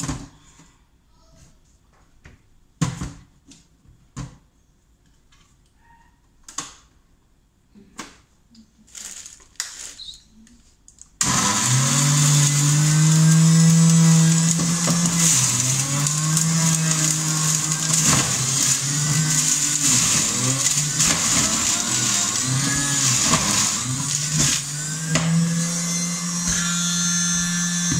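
A few scattered clicks and knocks, then about eleven seconds in an electric juicer's motor switches on abruptly with a loud steady whir. Its pitch sags and recovers several times as fruit is pressed down the feed chute and the motor is loaded.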